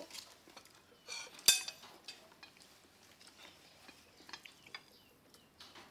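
Metal spoon scraping and clinking against ceramic dishes, with one loud ringing clink about one and a half seconds in, then scattered light taps.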